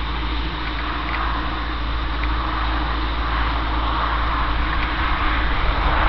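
Massey Ferguson 3070 tractor's diesel engine running steadily under load while pulling a four-furrow reversible plough, growing gradually louder as it approaches.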